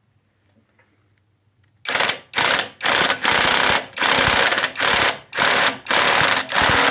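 An impact wrench hammering as it tightens a nut on the front suspension. It starts about two seconds in and runs in a string of short, loud bursts, trigger pulled and released repeatedly.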